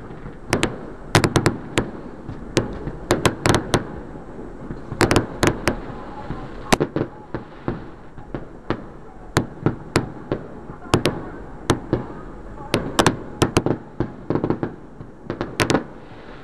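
Aerial firework shells bursting in the finale of a fireworks show: dozens of sharp bangs and cracks at irregular intervals, some coming in quick clusters.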